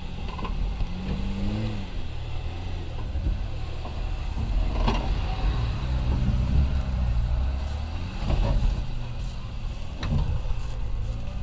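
Volvo TGB 13 6x6 with its straight-six petrol engine running under load, its pitch rising and falling as the truck crawls over rough ground. A few sharp knocks are heard along the way.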